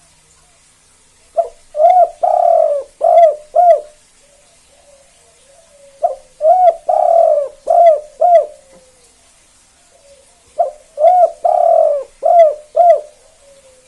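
Spotted dove (tekukur) cooing its song three times, about every four and a half seconds. Each phrase opens with a short note, swells into a longer drawn-out coo, and ends on two short 'kuk' notes: the 'kuk 2' song type.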